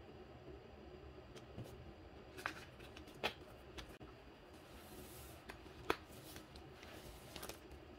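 Sheets of paper stickers and then a plastic bubble mailer being handled on a table: scattered soft rustles and light taps, with a few sharper clicks and a short sliding hiss near the middle.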